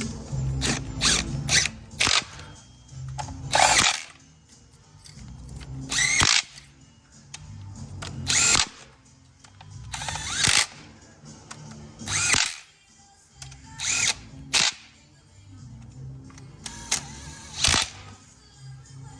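Cordless power driver running bolts in a dozen or so short bursts, each under a second, with pauses between.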